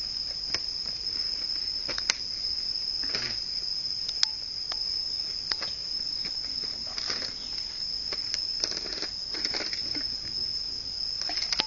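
Insects calling in one steady, high-pitched tone, with scattered sharp clicks and a few brief rustles over it.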